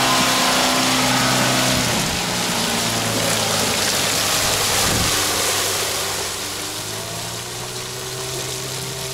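Renault Duster's engine running at low steady revs as it crawls through deep wet mud ruts, then fading over the last few seconds as the car pulls away.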